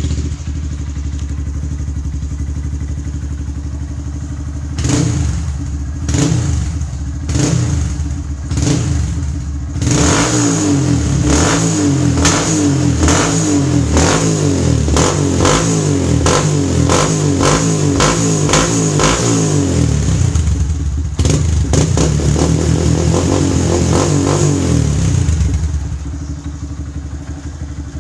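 Honda Grom's single-cylinder four-stroke engine running through a Yoshimura exhaust with the baffle fitted. It idles, gives a few separate throttle blips, then a long run of quick repeated revs, and settles back down near the end.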